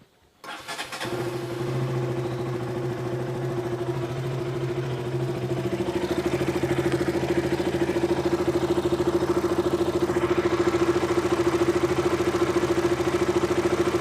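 KTM RC 200's single-cylinder engine starting about half a second in, then idling steadily with an even pulse. The spark plug cap is loose and not seating properly, which the owner takes for the cause of a sparking tick, unstable idle and stalling.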